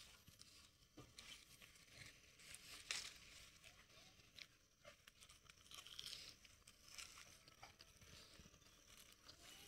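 Faint scattered rustling and crunching, with a few short sharp clicks, the loudest about three seconds in.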